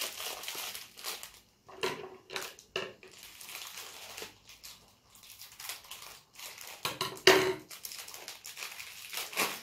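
Clear plastic toy packet crinkling as it is handled, snipped with scissors and pulled open, in irregular crackles with the loudest burst about seven seconds in.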